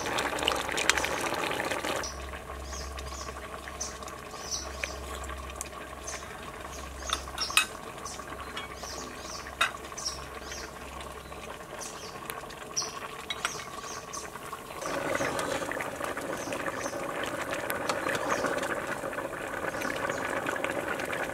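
Braised fish sauce simmering and bubbling in a pot, with light scattered clinks of a utensil against the cookware. The bubbling grows louder about fifteen seconds in.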